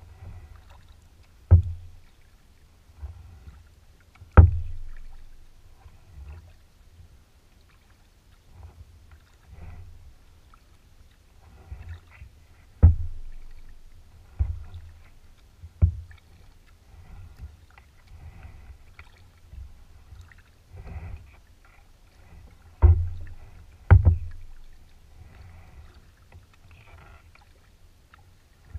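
Kayak being paddled: soft paddle strokes and water moving along the plastic hull, broken by about seven sharp, irregularly spaced knocks on the hull.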